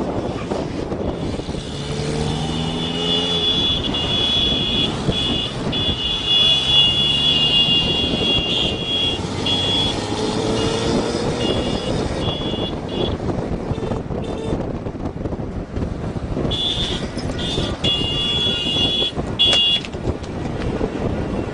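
A car driving fast in a convoy of cars, with steady engine and road noise. A high, shrill, steady tone sounds on and off over long stretches, with a few shorter horn-like blasts in the first half.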